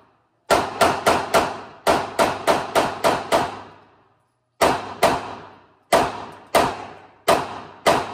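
Semi-automatic pistol fired rapidly: about ten shots in quick succession, a short pause, then six more at a slower pace, each crack followed by a ringing room echo. The pistol keeps cycling through an extended ETS magazine without jamming.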